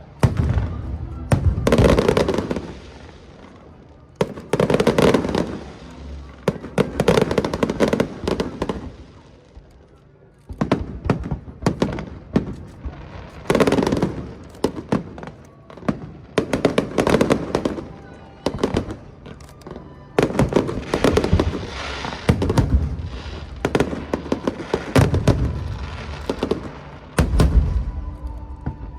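Aerial fireworks display: shells bursting in quick volleys of bangs and crackles, in several waves with a short lull about ten seconds in.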